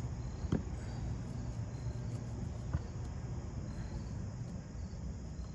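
Outdoor background of insects chirping, a faint high repeated trill over a steady low rumble, with a couple of faint clicks.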